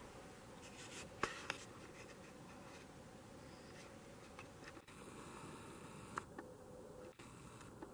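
Faint rustling and scraping of people walking through snowy brush: footsteps in snow and branches brushing against clothing. There are a few sharp clicks a little past a second in and again around six seconds.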